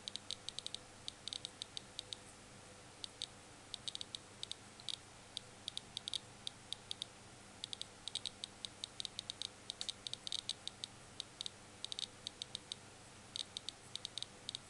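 Handheld negative-ion tester (EB-13) clicking rapidly and irregularly, about six sharp ticks a second in uneven clusters. Each click is the meter's audible signal of negative ions detected from the material under it.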